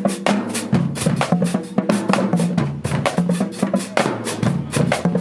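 High school marching band drumline playing a cadence: dense, steady snare strokes over pitched bass drums.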